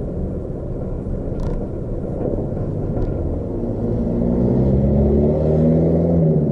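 Low vehicle and road rumble as the camera vehicle slows to a stop. A small truck's engine then draws near and passes close, its note rising slightly and loudest near the end.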